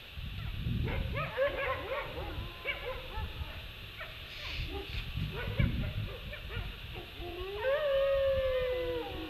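Wolves howling and yipping in chorus, several wavering voices gliding up and down over one another. About three-quarters of the way through, one long howl rises and holds steady for over a second.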